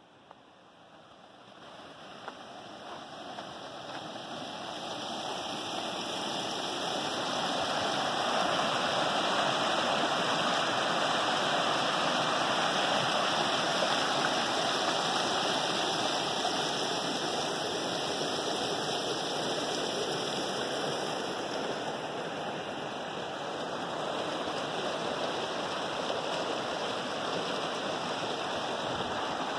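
Shallow rocky stream rushing and tumbling over rocks and small cascades, a steady rush of water that grows louder over the first several seconds and then holds.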